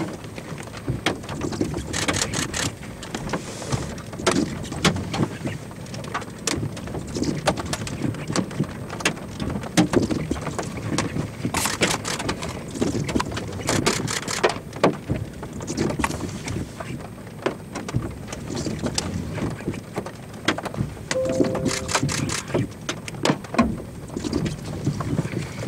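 Gusty wind rushing against the car, with raindrops striking the glass and body in irregular sharp taps. A brief hum sounds near the end.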